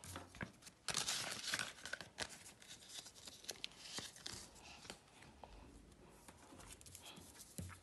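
Paper banknotes and envelopes rustling and crinkling as they are handled, with scattered light clicks and taps. The rustling is busiest about a second in and again around four seconds, then dies down to faint handling near the end.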